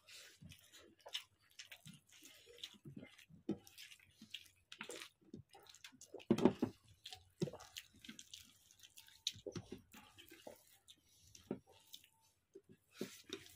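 Wet, irregular smacking and squelching of people eating rice by hand: mouths chewing, and fingers mashing and scooping rice with fried vegetables on plastic plates. There is one louder, lower sound about six and a half seconds in.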